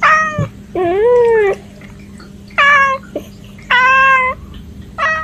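A cat meowing repeatedly: five short meows, each under a second long, with one lower, wavering meow about a second in.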